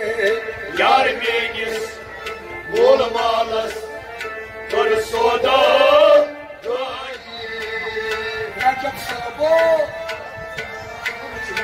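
Kashmiri Sufi music: a harmonium holds a steady drone under melodic phrases that swoop up and down, with regular hand-drum strokes.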